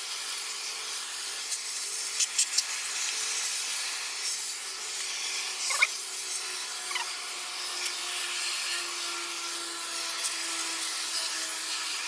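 Garden hose spray nozzle spraying water from inside an air-conditioner condensing unit out through the coil fins: a steady hiss of water spray.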